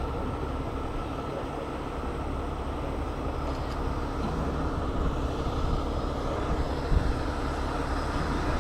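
Diesel engine of a heavy tow truck running steadily, with one brief knock about seven seconds in.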